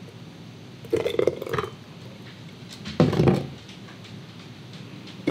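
Thick tomato soup poured twice through a stainless steel canning funnel into a glass canning jar, each pour starting with a sharp knock of metal on the funnel and lasting about half a second.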